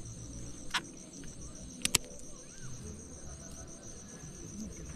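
Steady, high-pitched chirring of insects such as crickets, with a few sharp clicks about three-quarters of a second in and a quick double click about two seconds in.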